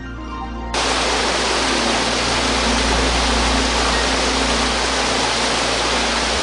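Loud, steady rushing of a waterfall that cuts in abruptly about a second in, replacing the background music.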